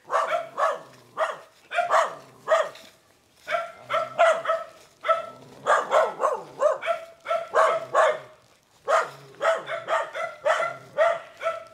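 A dog barking over and over, about two barks a second, with a short break about eight seconds in.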